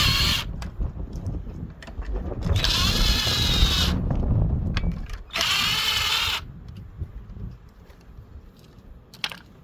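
Power drill backing out the three valve cover screws on a small engine, in three short whining runs: one just ending as the sound begins, then two more about a second long each, a few seconds apart. Light clicks and handling noise follow.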